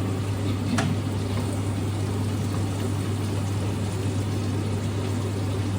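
A steady mechanical hum under an even rushing noise, with a faint click about a second in.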